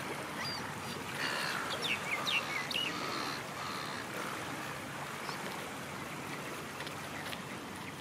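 Small waves lapping and washing over shallow water at the shoreline. A few short, sharp bird calls sound about one to three seconds in.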